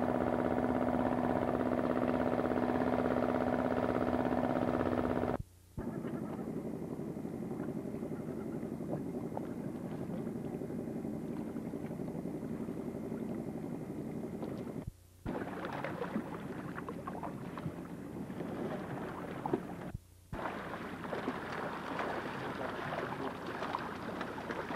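A small open fishing boat's engine running steadily at constant speed. After a cut, engine and water noise, and near the end irregular splashing and crackle as cod thrash in the trap net being hauled alongside the boat.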